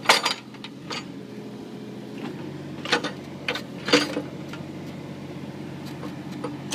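Mini excavator engine running steadily, with about five sharp knocks and clanks from the machine working at a tree stump, the loudest right at the start and around three and four seconds in.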